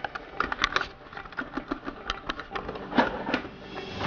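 Metal drawer slides clicking and rattling as a drawer is fitted onto its rails and slid into the cabinet: a run of irregular clicks, with a louder knock about three seconds in.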